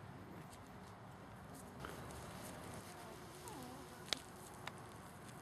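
Havanese puppies playing, with faint low play-growls and a few small sliding squeaks over a quiet outdoor background. Two sharp clicks come a little after four seconds.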